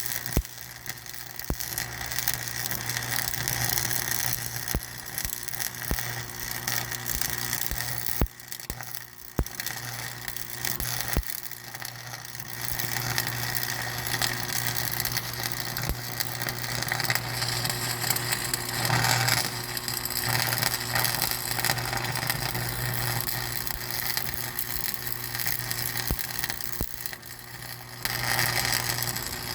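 Running vehicle heard from inside the cab: a steady low hum with road and engine noise, and scattered sharp clicks and rattles.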